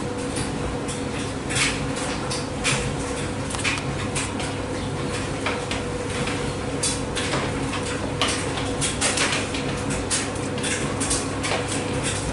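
Speed Queen front-loading washer tumbling a load of clothes in its drum: a steady machine hum with frequent, irregular clinks and knocks.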